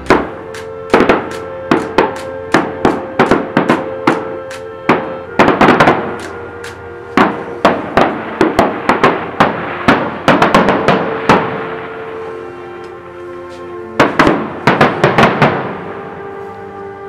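Aerial fireworks shells bursting in rapid volleys of sharp bangs, densest through the first ten seconds or so, then a pause and another quick cluster near the end. Steady held musical tones run underneath.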